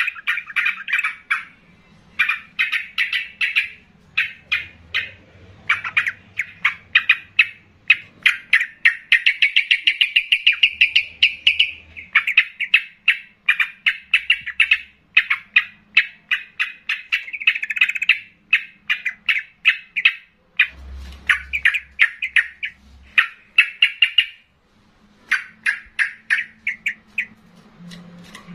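Yellow-vented bulbul (trucukan) singing loudly in full song: rapid runs of bubbly, chattering notes, phrase after phrase with only short pauses between them.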